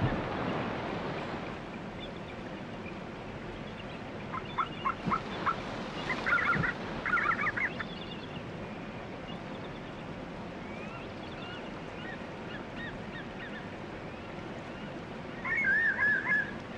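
Bald eagles calling as they squabble over food: a run of short sharp notes about four seconds in, two bursts of rapid chittering soon after, and another chattering call near the end, over a steady rushing noise.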